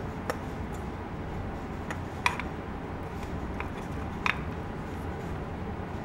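A few sharp, light clicks, four in all, the loudest about two seconds in, from a hand tool working a hole into thin sheet metal, over a steady low hum.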